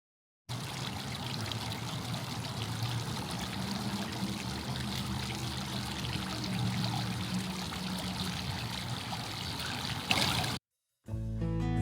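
Steady rush of flowing water. It starts abruptly and swells briefly just before it cuts off near the end.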